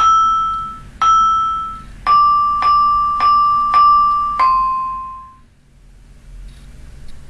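Synthesised vibraphone notes from the Vibrafun tablet app: seven struck notes in a simple melody, each ringing and dying away, stepping lower in pitch, the last fading out about five and a half seconds in.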